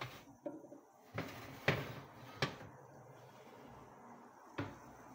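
A few light knocks and clunks of a metal baking tray and wire oven rack being pushed into a built-in oven and the oven door being handled, the sharpest knock about halfway through.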